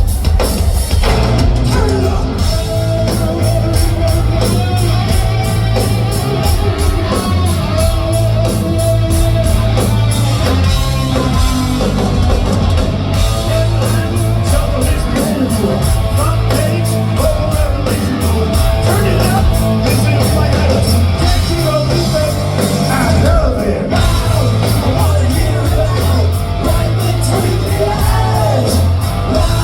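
Live heavy rock band playing loudly, with a steady drum beat and heavy bass.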